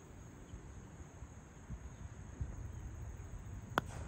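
A single sharp knock near the end, over a steady low rumble and a constant high-pitched whine.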